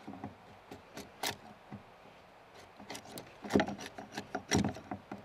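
Hand chisel cutting and scraping wood inside a mortise in an old log: irregular scrapes and sharp knocks, the loudest two about three and a half and four and a half seconds in.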